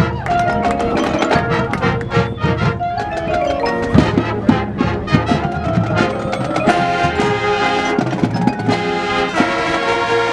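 Marching band music: the front ensemble's mallet percussion (marimba, xylophone, glockenspiel) and drums playing a quick run of struck notes, then the band settling into sustained held chords about two-thirds of the way through.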